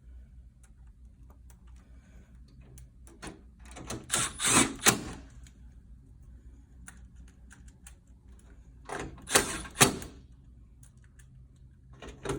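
Clicking and metal clatter as the top fan guard of a PTAC unit is fitted and screwed back down, in two short bursts of rattling clicks with a pause between them, over a low steady hum.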